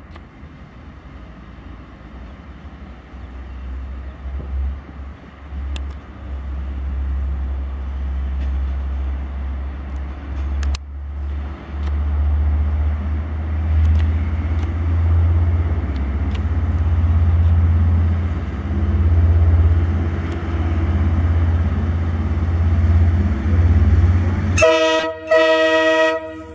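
KiwiRail DL-class diesel-electric locomotive hauling a container train, its engine a low rumble that grows louder as it approaches. Near the end a locomotive horn sounds a loud toot of about two seconds.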